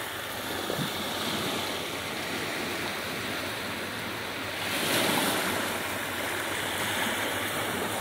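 Sea waves washing on a beach, a steady rushing wash with one wave surging louder about five seconds in.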